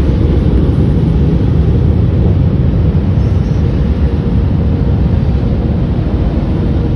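Rotating brushes of a Tommy tunnel car wash scrubbing over the car, heard from inside the cabin as a loud, steady rumble and swish.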